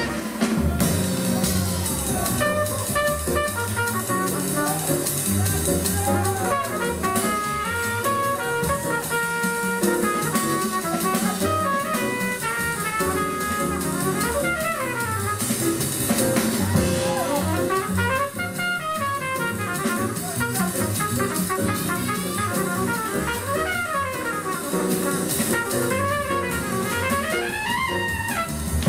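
Jazz dance music with horns and drum kit, playing without a break.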